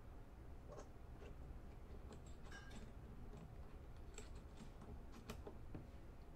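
Faint scattered clicks and taps from a camera and its mount being handled and repositioned, over a low steady hum.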